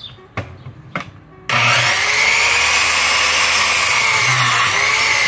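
Electric miter saw switched on about a second and a half in, running with a loud steady whine as it cuts through a wooden stave from an old rum cask. Two short knocks come just before it starts.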